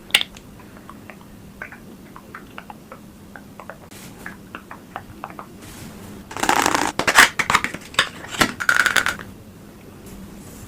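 Close-miked handling of skincare packaging: a run of soft, light clicks and taps, then about three seconds of louder rustling and crinkling.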